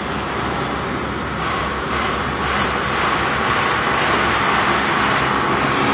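Steady rushing noise that grows slightly louder, with no clear pitch or rhythm.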